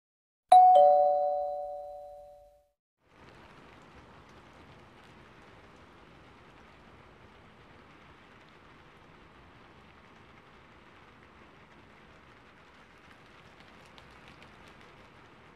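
Two-note "ding-dong" notification chime of a subscribe-button animation, a higher note then a lower one, dying away over about two seconds. After it comes a faint steady hiss.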